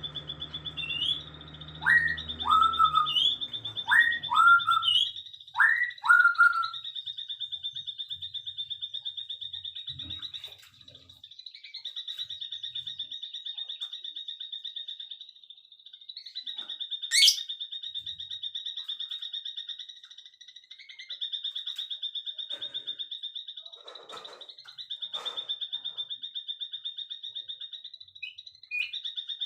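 Birdsong: a continuous high, rapidly pulsing trill that pauses briefly a few times. In the first few seconds four short whistled calls are heard, each sweeping up and then holding lower.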